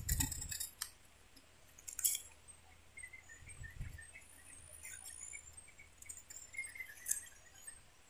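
Knife blade shaving thin slivers off a bamboo tube: a few short, crisp scraping strokes, spread out, as the wall of the tube is thinned slowly.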